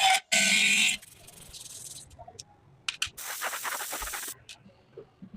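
A loud hissing noise cuts off about a second in. It is followed by quieter scraping, scattered small clicks, and a rasping burst of about a second in the middle, from work on a small metal model car.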